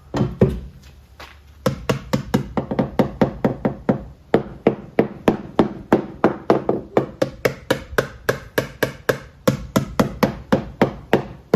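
A hammer striking repeatedly: two or three blows near the start, then a steady run of about four blows a second, each a sharp knock with a woody ring.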